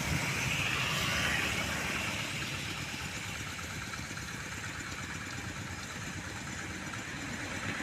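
Old tractor engine running steadily at idle, a fast, even chugging that grows a little quieter over the first few seconds.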